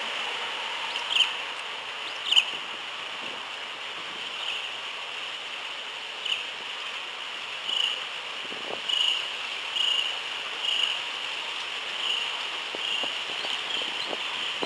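Short bird chirps, about a dozen at irregular intervals, the two loudest about one and two and a half seconds in, over a steady hiss.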